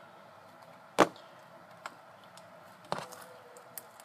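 Homemade clear-glue slime being squished by hand, with two sharp pops about two seconds apart, the first the loudest, and a few faint ticks between.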